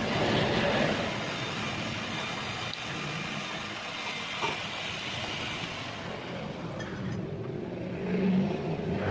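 Steady broad hiss of a vehicle running nearby, thinning out about six seconds in, with a light click near the middle.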